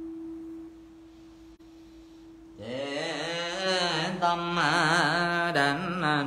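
A steady ringing tone fades away, then about two and a half seconds in a voice starts chanting Buddha names in Vietnamese Buddhist liturgical style, the pitch wavering and sliding on each held syllable.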